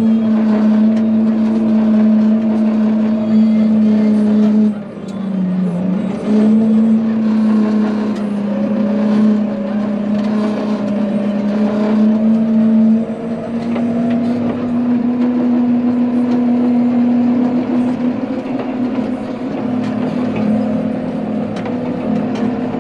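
Case 115 C tractor's diesel engine running steadily, heard from inside the cab while it pulls and drives a manure spreader. About five seconds in the engine note sags briefly and then recovers.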